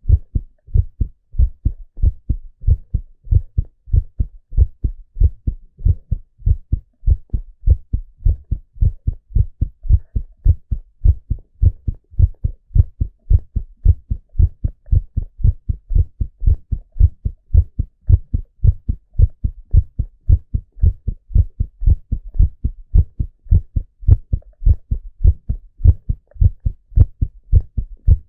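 A man's heartbeat recorded close at the chest: a steady, regular train of low thumps, about two a second.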